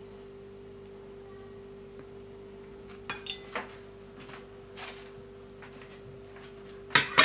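Knife and dishes clinking a few separate times as a kiwi is peeled and cut, over a steady faint hum. The loudest knock comes near the end.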